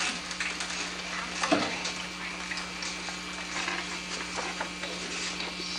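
Steady hiss and a low hum from an old home-video recording, with faint scattered classroom noises and one short knock about one and a half seconds in.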